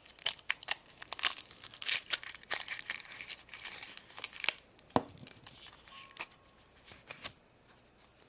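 Foil wrapper of a Kinder Surprise egg being torn and crinkled off by hand, a dense run of crackles, with one sharp snap about five seconds in and lighter crinkling after.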